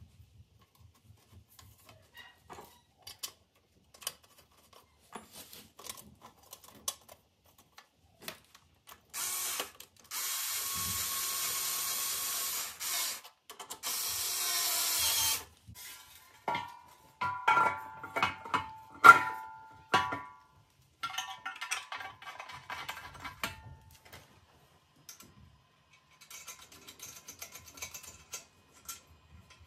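Cordless drill/driver with a socket bit running in three short runs, driving home the bolt on a portable generator's alternator end cover. After it come sharp metallic clanks with a ringing tone, the loudest sounds, then lighter clinks and rattles of tools and metal parts being handled.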